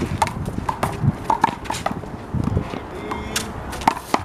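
Big blue rubber handball in a one-wall handball rally, struck by open hands and bouncing off the wall and pavement: a quick, uneven run of sharp smacks, each with a short ring.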